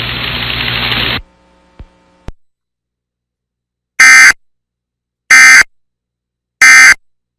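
Emergency Alert System end-of-message data bursts: three short, loud, identical buzzy bursts about 1.3 seconds apart, marking the end of the warning. They come after a second of broadcast hiss that cuts off suddenly, followed by two faint clicks.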